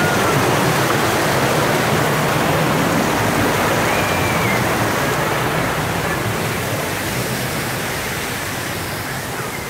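Water rushing down a shallow water-park tube channel: a steady hiss of flowing and cascading water that grows gradually quieter.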